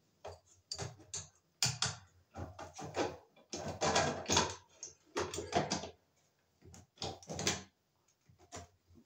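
Irregular clicks, scrapes and rustles as wires are folded up into a ceiling electrical box and a porcelain lampholder is pushed up and fitted against it.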